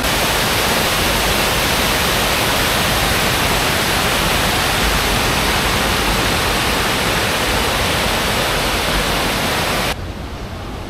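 Loud, steady rush of water from a full mountain stream. It drops suddenly in level about a second before the end.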